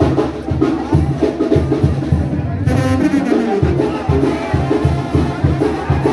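Brass band music with drums, a regular low beat running under the horns.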